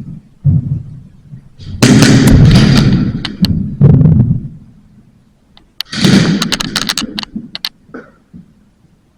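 Airsoft gas-blowback pistol fire: two long, very loud volleys of rapid shots, about two and six seconds in, with single sharp cracks between and after them.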